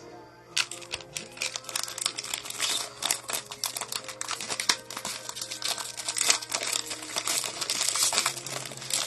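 Trading card pack wrappers crinkling and tearing as a pack is opened, with cards being handled. The crackling starts about half a second in and goes on in a dense run.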